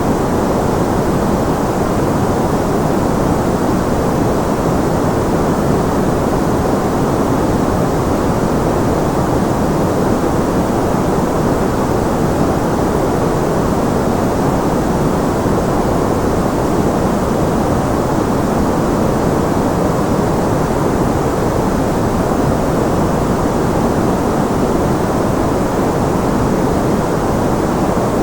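Steady, unchanging white noise: a constant rushing hiss, fuller in the low and middle range with less at the top.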